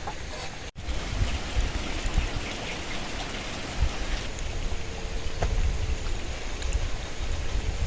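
Steady rain with gusty wind, the gusts rumbling low on the microphone, and scattered drips ticking.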